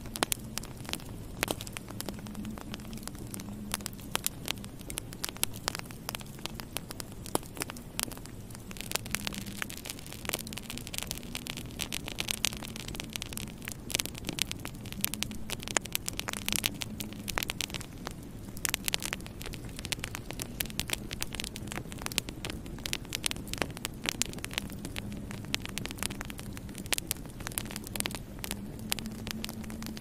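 Wood fire in a fireplace crackling, with many quick sharp pops and snaps over a low steady hum.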